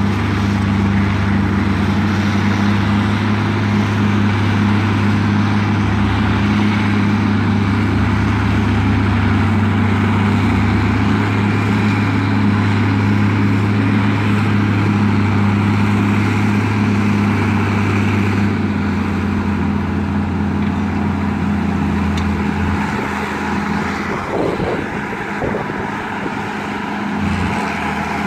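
Diesel engine of a Track Marshall crawler tractor running steadily under load while ploughing. Its note shifts and it grows a little quieter about two-thirds of the way through, then picks up again near the end.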